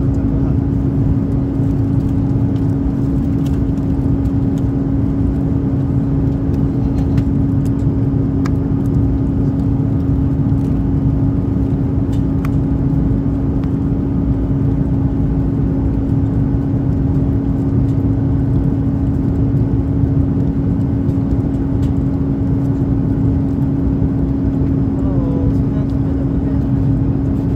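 Steady airliner cabin noise inside an Airbus A330-300: a constant drone of engines and airflow with a low, even hum running through it.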